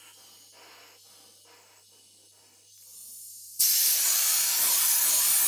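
Compressed gas hissing out of a gas cylinder's opened valve. It starts suddenly about three and a half seconds in, runs loud and even for about two seconds, then cuts off. Before it there is only a faint steady hum.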